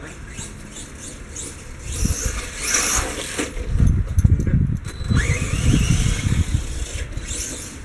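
Electric RC monster truck (Blackout XTE Pro) driving fast over grass, its motor whining and rising in pitch as it speeds up about five seconds in, with rough tyre and chassis noise.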